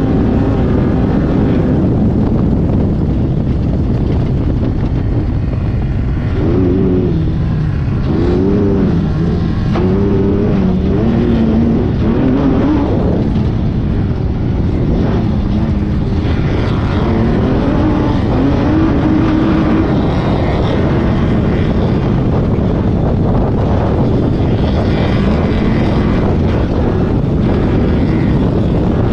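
Off-road race car's engine at race pace, recorded from inside the car, its pitch climbing and dropping repeatedly with throttle and gear changes, over a constant loud wash of wind and running noise.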